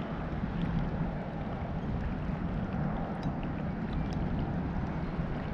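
Steady wind rumble on the microphone, with a few faint ticks.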